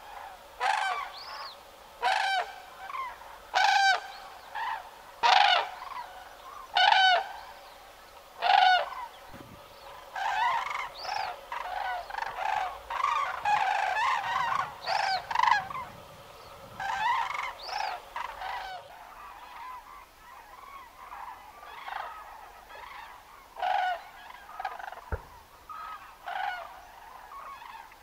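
Common cranes giving their loud, hoarse calls: single calls come about every one and a half seconds at first, then many overlapping calls from a flock in the middle, and fainter scattered calls after a change in the background about two-thirds of the way through.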